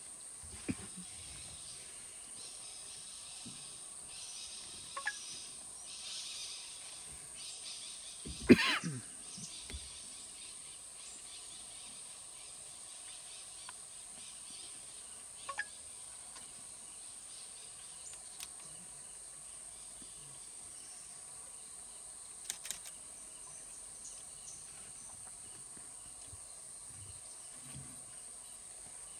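Outdoor ambience under a steady high-pitched insect drone, with a few faint clicks and one brief, loud sound about eight and a half seconds in.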